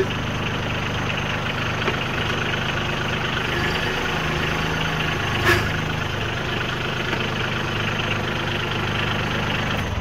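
Branson compact tractor's diesel engine running steadily as the tractor creeps forward, its note shifting briefly partway through, with a single sharp clunk about halfway. The engine is shut off right at the end.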